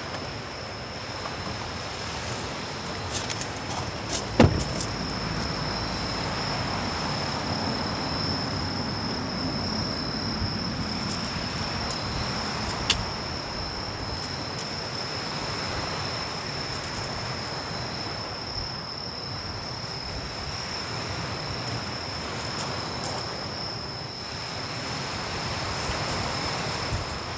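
Night insects trilling in one unbroken high tone over a steady background hiss, with a sharp thump about four seconds in and a few light clicks of gear being handled.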